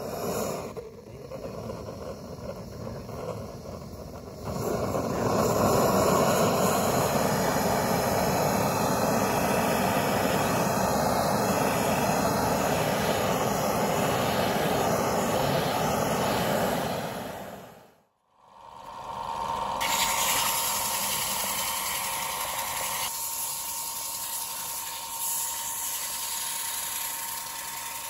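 Gas blowtorch flame burning with a steady rush, louder from about four seconds in, as it scorches a turned bamboo cup. After a brief break about two-thirds through, a wood lathe runs with a steady hum while the cup spins.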